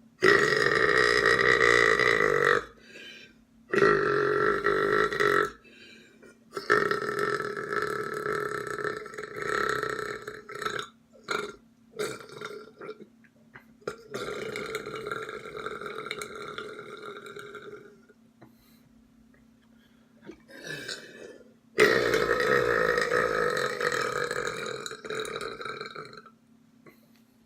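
A person belching loudly: a series of about six burps, most of them long and drawn out over two to four seconds each, with a few short ones between and brief pauses.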